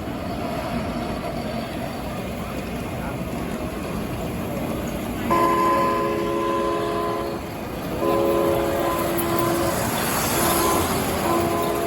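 A sound-equipped model train locomotive blowing its multi-note diesel horn, starting about five seconds in: two long blasts, a short one, then a long one, the grade-crossing signal.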